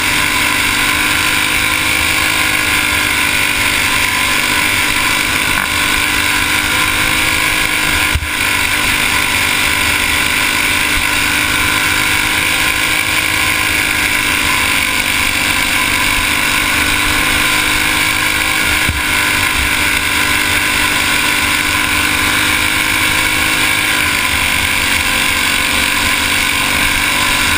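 Racing go-kart engine running hard and steady at speed, heard close up from onboard the kart, its pitch wavering only a little.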